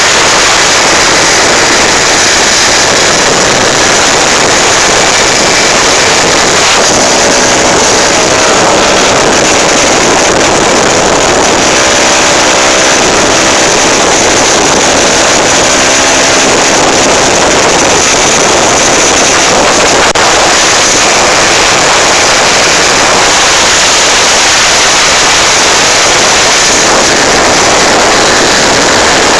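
Yamaha Crux single-cylinder motorcycle engine running hard at speed, under a loud, steady rush of wind over the microphone. The engine's note comes through the wind more clearly in the middle and near the end.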